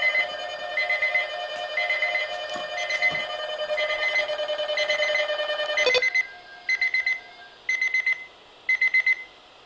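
Electronic emergency alert tone: a beep pulsing about once a second over a steady tone. About six seconds in the steady tone stops and three more beeps follow, about a second apart.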